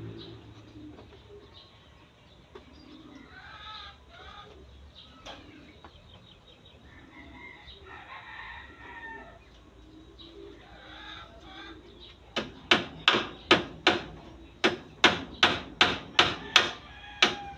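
Faint chicken clucking, then, about twelve seconds in, a run of sharp hammer blows, about three a second with a brief pause, as nails are driven into the bamboo frame.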